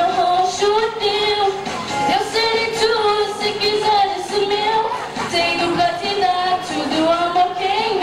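Female voices singing a song with music, in long held notes that bend in pitch.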